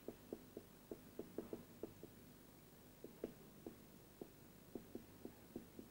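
Faint marker pen writing on a whiteboard: a run of short strokes, several a second, with a brief pause a little after two seconds in.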